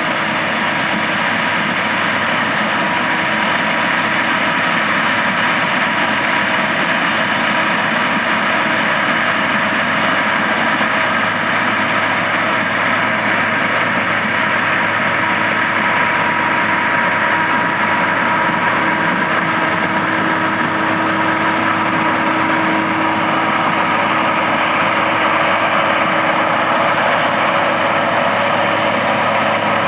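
Massey Ferguson 9895 combine running steadily: a constant, even drone with a steady hum in it.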